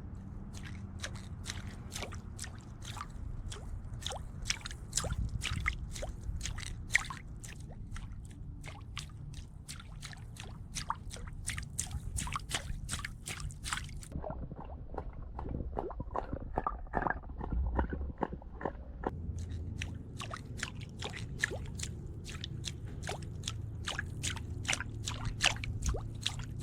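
Water sloshing and dripping, with rapid irregular clicks and ticks over a steady low rumble, as picked up around a lure worked through the water. For a few seconds midway the clicks turn muffled.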